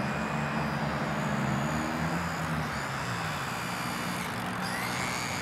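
Electric motor and propeller of an RC Super Cub model airplane flying overhead: a steady drone whose pitch sags around the middle, with a thin high whine and a short rising tone near the end.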